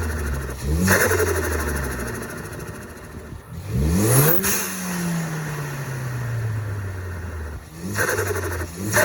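Ford Focus ST's turbocharged four-cylinder through a Cobb exhaust with a catless downpipe, revved three times: the engine note climbs quickly about a second in, near four seconds and near eight seconds, and after the middle rev it sinks slowly back down. Each rev comes with a brief rush of air.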